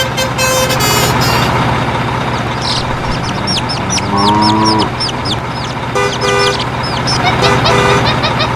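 Vehicle sound effects: a steady engine hum, with a burst of quick chirping bird calls and one pitched call in the middle. Two short pairs of horn toots come near the end.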